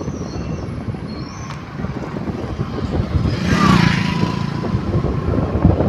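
Vehicle engine and road rumble heard while riding along a street, with a brief hiss that swells and fades about three and a half seconds in.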